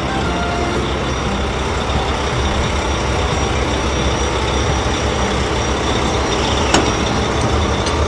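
Truck engine sound effect, running steadily as a driving dump truck, with one short sharp click near the end.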